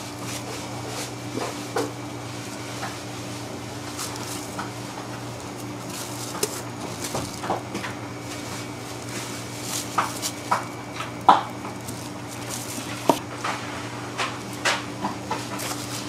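Scattered light knocks and clicks of a chef's knife and hands working a sheet of laminated dough on a plastic-covered bench, the sharpest knocks a little past the middle, over a steady machine hum.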